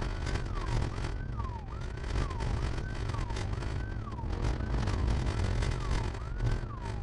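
Police siren in a fast yelp, each cycle a quick rise and a slower fall in pitch, repeating about one and a half times a second over the steady low rumble of the patrol car's engine and tyres at pursuit speed.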